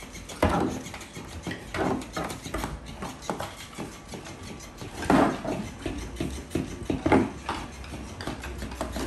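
Dogs moving about on a bare wooden floor: scuffling claws and a series of sharp knocks, the loudest about half a second in and again around five and seven seconds in, as a boxer noses a toy around.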